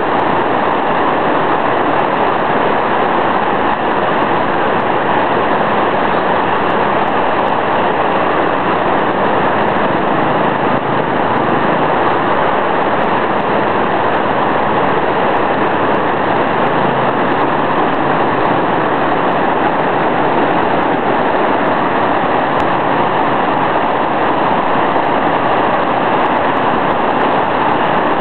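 Flash-flood torrent of muddy water rushing past, a loud, steady rush with no breaks.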